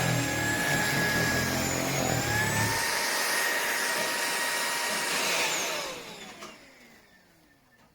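Cordless stick vacuum (Tineco A30S) running with a high motor whine, which steps up slightly about two seconds in while a low rumble drops out a little later. Then it is switched off and the whine glides down as the motor spins down and fades.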